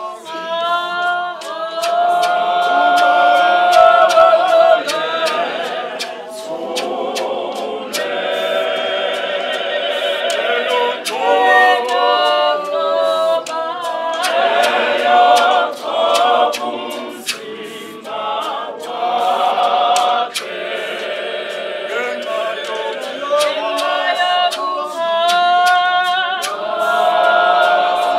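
Mixed choir of men and women singing a hymn a cappella in harmony, with sharp clicks throughout.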